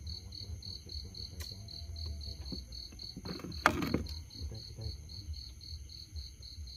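A cricket chirping steadily, a high pulse about five times a second. About three and a half seconds in there is one sharp click.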